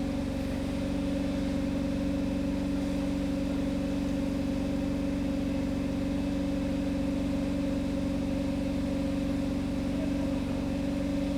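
Steady, even engine hum, like a vehicle idling, holding one pitch without change.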